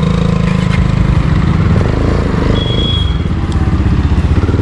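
Motorcycle engine running at low revs with a rough, steady pulse as the bike pulls away from a standstill.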